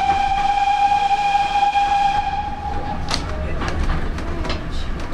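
Train whistle sounded by the driver from a GWR auto-trailer's cab: one steady blast held for about three seconds that cuts off sharply, over the low rumble of the train running. After it come a few clicks and knocks from the running gear.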